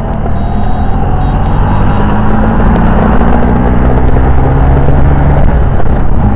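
Bajaj Chetak scooter's single-cylinder two-stroke engine running under way, its note climbing slowly over the first few seconds, over a steady rush of noise. The engine is freshly rebuilt and described as running smoothly.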